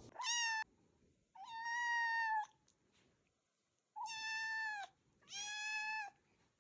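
A cat meowing four times: high, drawn-out meows of about half a second to a second each, holding a fairly level pitch, with short pauses between them.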